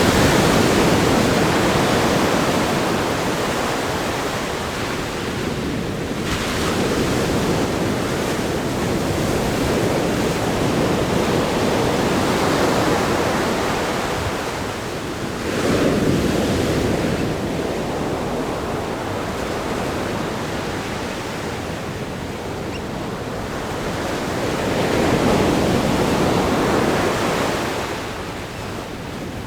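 Ocean waves breaking against a rock groin and washing over sand, a continuous rush of surf that swells with a fresh break near the start, again about halfway through, and again near the end.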